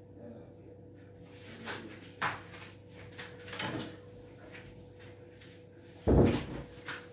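Scattered knocks and bumps of doors or cupboards being opened and closed out of sight, with a louder thump about six seconds in, over a faint steady hum.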